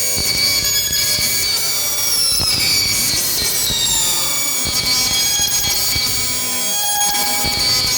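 Electronic synthesizer music: a dense, droning texture of sustained high tones, with a cluster of pitches sweeping downward from about three to five seconds in.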